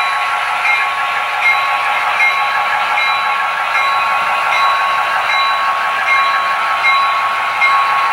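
Model diesel locomotives (Intermountain GP10s) running in a consist and pulling hopper cars: a steady high whine from their motors and gearing, with a light tick repeating about every three-quarters of a second.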